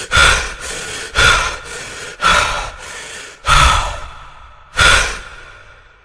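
Five loud, breathy hissing bursts, roughly one a second, each dying away quickly.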